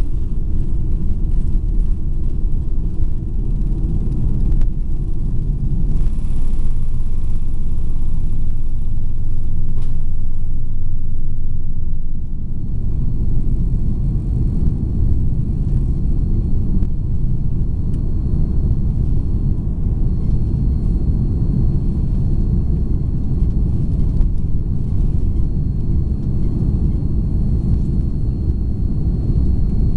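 Inside the cabin of an Airbus A340-300 taking off: its four CFM56-5C engines at takeoff power and the rushing air make a loud, deep, steady rumble through the end of the takeoff run and the climb-out. About twelve seconds in the rumble eases a little and changes character, and a faint steady high whine comes in.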